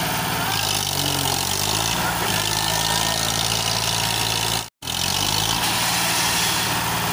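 Eicher tractor's diesel engine running steadily as it pulls a trailer through deep mud, its pitch dipping and rising briefly about a second in. The sound cuts out completely for an instant just past halfway.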